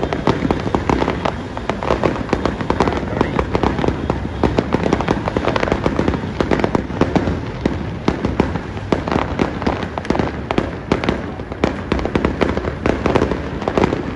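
Fireworks display going off in a dense, unbroken barrage of bangs and crackles, several a second and overlapping.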